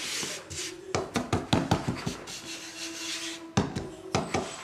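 A drinking glass pressed down through rolled pierogi dough onto the table to cut out rounds: a run of sharp knocks and taps, with a few more near the end. At the start, hands rub flour across a wooden pastry board.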